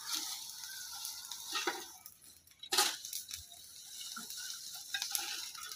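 Dry leaves and twigs rustling and crunching as a pile of plant debris is scooped up by hand and with a shovel, with two sharper crunches about two and three seconds in.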